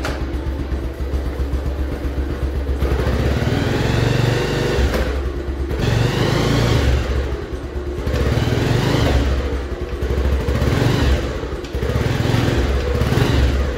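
Bajaj Pulsar 150's single-cylinder four-stroke engine running in gear on the stand, revved up and let back down about five times while the rear wheel spins. The owner is checking the newly fitted rear disc brake.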